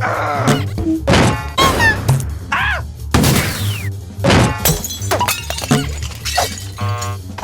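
A quick run of dubbed-in cartoon sound effects: sharp hits and crashes, springy pitch sweeps and a falling whistle about halfway through, over background music.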